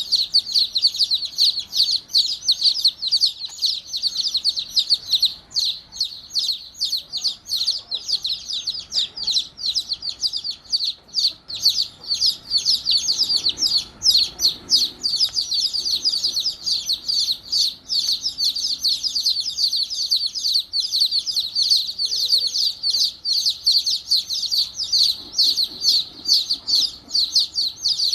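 Baby chicks peeping without pause, many short high-pitched peeps from several chicks overlapping one another.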